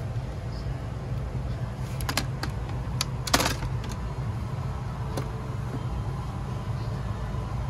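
Steady low hum of a Boeing 757's cabin air system while the plane sits at the gate during boarding. Over it come a few sharp clicks and knocks, bunched between about two and four seconds in, the loudest a short clatter, and one more click a little later.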